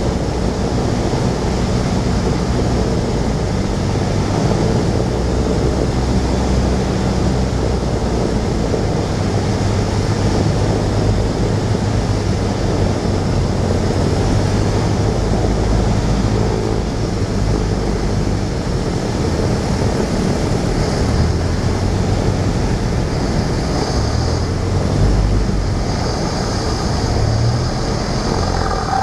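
Cessna 172's piston engine and propeller running at reduced power on final approach, heard inside the cockpit under steady airflow and wind noise.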